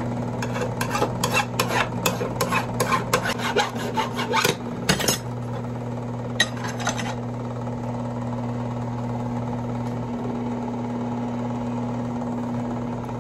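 Benchtop drill press motor running with a steady hum, set up to bore the second pin hole in a high-carbon steel knife blank. Over the first five seconds there is a rapid run of scratchy clicks, about four or five a second, and another short run about six and a half seconds in.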